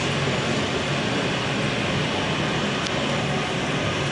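Embraer 190's General Electric CF34 turbofan engines running as the jet taxis up to the gate. Heard through terminal glass as a steady rush with a low hum underneath.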